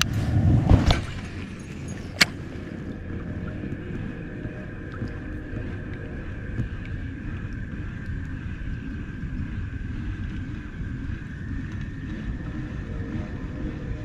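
Knocking and thumping in the first second, a single sharp click about two seconds in, then a steady low rumble with a faint, even high hum above it.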